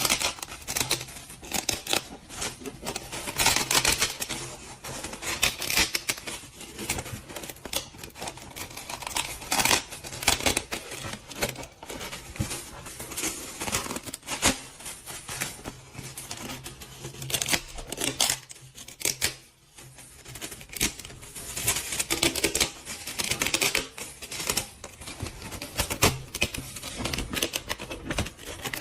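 Rapid, irregular clicking and scratchy scraping, like hands working on small hard objects, over a low steady hum that stops about two-thirds of the way through.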